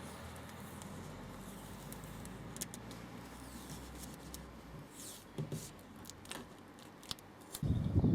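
Handling noise from taping up a car door's inner parts with electrical tape: faint rustling with scattered small clicks and snaps, then a louder low thump and rumble of handling near the end.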